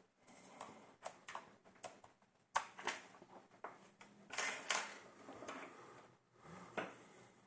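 Irregular plastic clicks, taps and light scraping from hands working on a laptop's case and parts, with one sharper click about two and a half seconds in.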